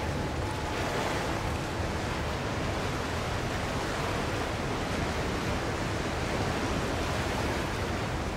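Steady, even rushing noise of wind and river water, with no distinct events.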